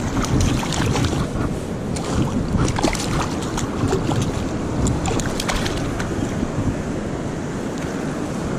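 Wind noise on the microphone over moving river water, with short splashes and clicks as a hooked bass is reeled in and thrashes at the surface.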